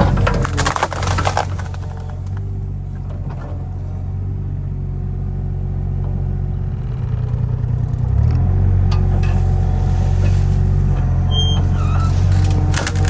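Kato HD35 mini excavator's small Perkins diesel engine running steadily, easing off and then picking back up under load about eight seconds in. A burst of sharp knocks and rattles about half a second in, and again near the end.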